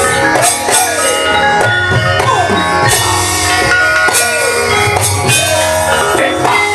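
Javanese gamelan ensemble playing: bronze metallophones ringing steady notes over drum strokes.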